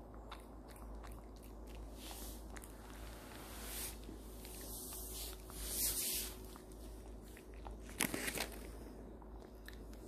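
Maltese dog chewing a treat, with many small sharp crunches and a couple of louder bites, about six seconds in and again about eight seconds in.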